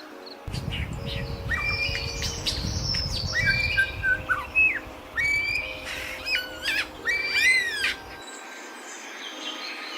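Bird calls: a series of harsh squawks and chirps, several with arching rise-and-fall notes near the end, over a low rumble that stops about eight seconds in.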